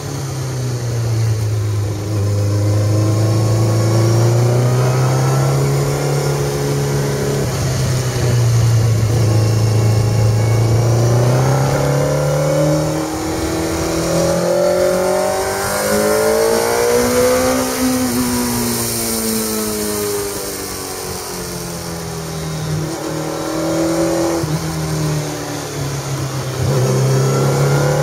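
Kawasaki Z1000 inline-four motorcycle engine under way, its pitch rising and falling as the rider works the throttle through a run of bends, with one long climb about two-thirds of the way in. A rush of wind noise runs underneath.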